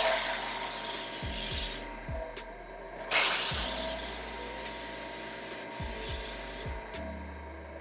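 Compressor-fed airbrush spraying hair color enhancement onto a paper towel as a test: two long bursts of hiss, the second starting about three seconds in and lasting several seconds.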